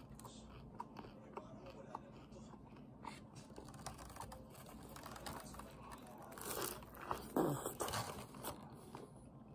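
Close-up mouth sounds of a bite into a crisp-fried birria taco: a few small clicks, then from about two-thirds of the way through a cluster of crunching and crackling as the shell is bitten, followed by chewing.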